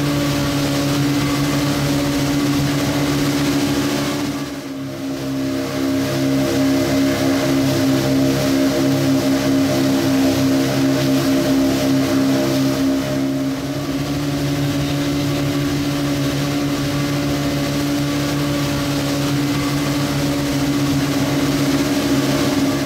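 Boat's outboard engine running steadily at cruising speed, with a rush of water and wind over the hull as it cuts through the waves. The sound dips briefly about four to five seconds in.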